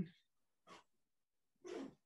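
Near silence broken by two short breaths from a person, a faint one about a third of the way in and a louder one near the end.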